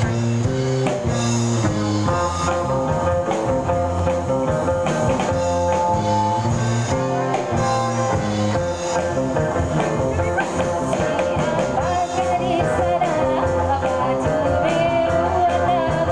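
Live band playing a rock song, with electric guitar over a moving bass line and a held note, and a wavering lead line coming in about two-thirds of the way through.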